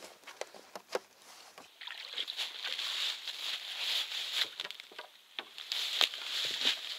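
Scattered light knocks and clatter, then a steady rustling from about two seconds in, with more small clicks through it: handling and movement noise as a boat is stopped at the bank.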